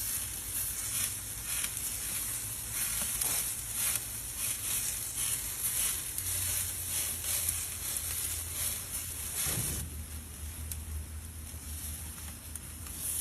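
Food sizzling and crackling as it fries in a hot pan, with irregular pops over a steady hiss; the crackling thins out somewhat near the end.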